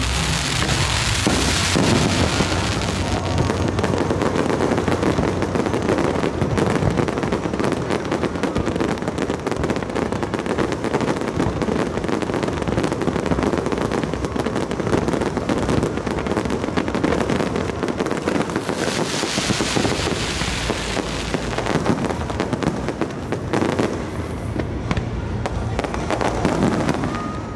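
Fireworks display: many shells and rising comets bursting in quick succession, a dense unbroken crackling and popping, with two stretches of brighter hissing crackle.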